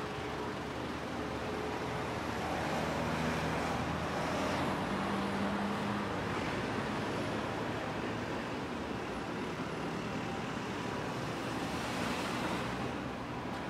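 City road traffic: a steady noise of passing cars and buses, with an engine hum in the first half and vehicles swelling past about four seconds in and again near the end.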